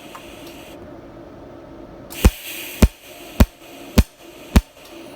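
A metalworking tool striking thin steel sheet: five sharp, loud strikes in an even rhythm, about one every 0.6 s, beginning about two seconds in over a steady hiss.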